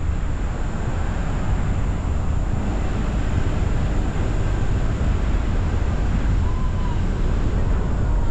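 Steady wind rumble on the microphone of a roof-mounted GoPro Hero 10, mixed with the car's road noise as it drives along.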